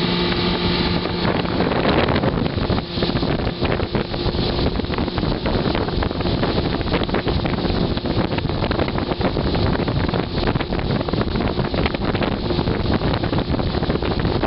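A motorboat under way at speed: the steady hum of its 100-horsepower outboard motor fades about two seconds in, and wind buffeting the microphone and rushing water take over.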